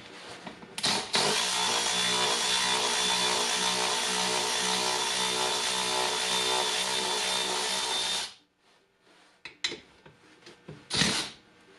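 Cordless electric ratchet with an Allen bit running steadily for about seven seconds, backing out one of the bolts that hold the seat base to the frame, then cutting off suddenly. A short spurt of the ratchet comes near the end.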